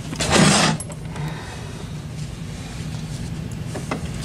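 Handling noise: a brief scraping rush about half a second in, over a steady low hum.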